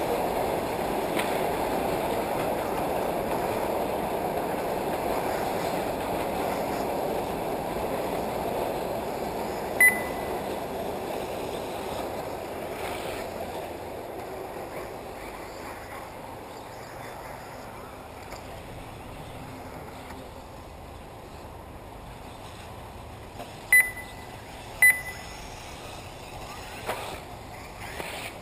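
Short, high electronic beeps from the race's lap-timing system: one about ten seconds in and two a second apart near the end. Beneath them is a steady rushing noise that fades away through the middle.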